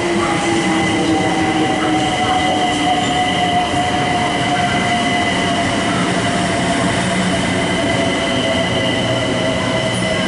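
London Overground Class 378 electric multiple unit running into the platform, with rail and wheel noise and a steady high squeal. Its motors give a whine that falls slowly in pitch as the train slows.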